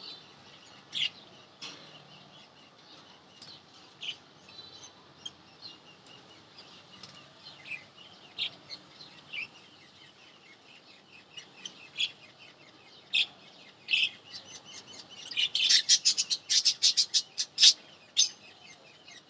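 Lovebirds chirping: scattered short, sharp chirps, then a quick flurry of rapid chirping in the last few seconds.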